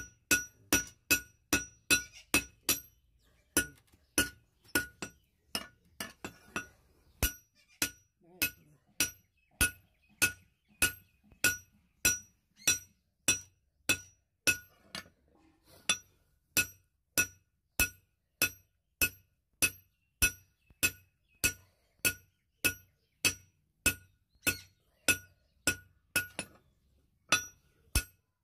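Hand hammer striking a red-hot curved steel blade on a steel anvil, in a steady rhythm of about two blows a second, each blow ringing with a bright metallic tone. The rhythm breaks briefly about three seconds in and again about halfway through.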